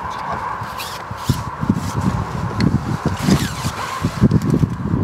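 Wind buffeting the microphone in irregular gusts, growing stronger after about a second, with a few brief scrapes and rustles on top.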